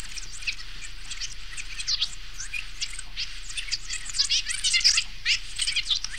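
Grundig EN3 dictation recorder rewinding its tape, its speaker giving a dense, high-pitched chirping chatter: the just-recorded voice heard at rewind speed.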